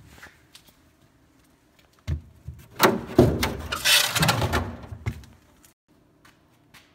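Clatter and scraping of metal and debris inside a gutted aircraft fuselage: a dense run of knocks and scrapes lasting about three seconds, starting about two seconds in.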